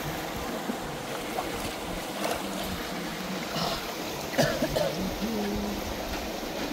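Stream water running steadily, with faint voices now and then.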